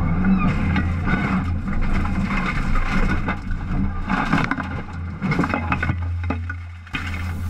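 Rally car engine running hard, heard from inside the cabin as a steady low drone, with tyre and gravel noise. Repeated knocks, scrapes and cracks come through the middle and later part as the car leaves the road and ploughs through bushes and small trees.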